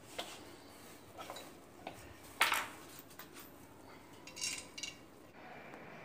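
Scattered clicks and clinks of ceiling-fan parts and screws being handled and fitted together by hand, the loudest about two and a half seconds in.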